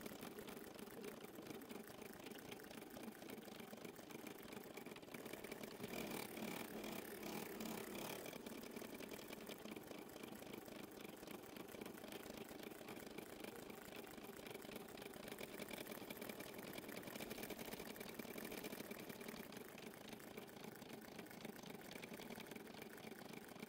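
Embroidery machine stitching steadily, a rapid run of needle strokes over a constant motor hum with a faint high whine, in a sped-up recording.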